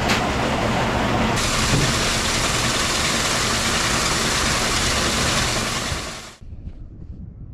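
Fanning mill running as it cleans grain: a loud, steady rushing clatter over a low hum. It stops abruptly about six seconds in, leaving a faint low rumble.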